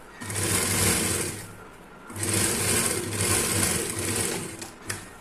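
Industrial sewing machine stitching a strip onto fabric in two runs, the first about a second and a half long and the second about two and a half seconds after a brief stop. A single sharp click comes near the end.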